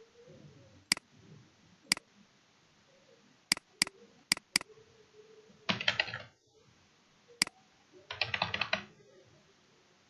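Single mouse clicks, then two short runs of rapid computer-keyboard typing, about six and eight seconds in, with another single click between them.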